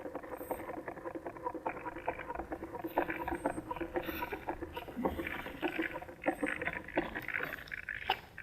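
Irregular rustling with many light clicks and crackles.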